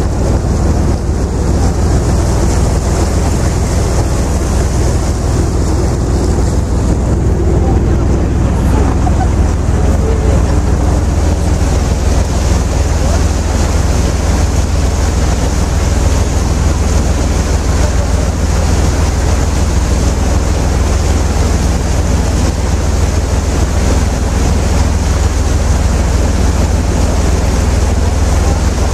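Steady low rumble of a river tour boat's engine under way, with wind on the microphone.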